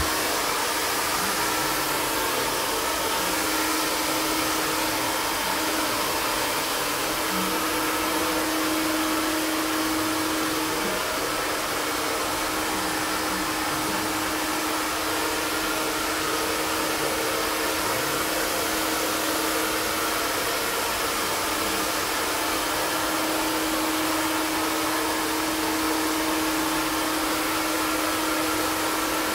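Prife iTeraCare handheld terahertz health blower running steadily: an even, hair-dryer-like rush of air with a steady low hum, not changing in level.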